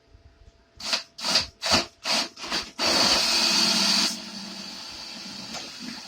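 Cordless drill motor triggered in about six short bursts, then run steadily for about a second at its loudest before dropping to a quieter steady run.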